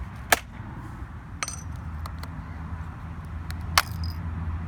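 Sharp plastic clicks and snaps as keycaps are pried off an iBook clamshell laptop keyboard: three louder snaps with lighter ticks between them, over a steady low hum.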